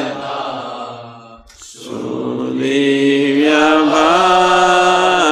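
Devotional hymn (kirtan) sung in long held notes over a steady low drone. One note fades out about a second and a half in, and a new note swells in half a second later and steps up in pitch near the end.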